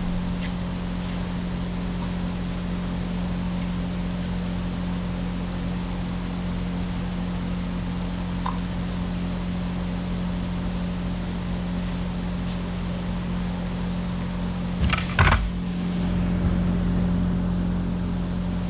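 Kubota excavator's diesel engine running steadily, with a couple of sharp knocks about fifteen seconds in.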